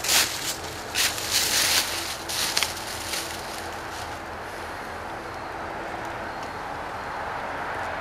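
Footsteps crunching through dry fallen leaves for about the first three seconds, then a steady background hiss with no distinct events.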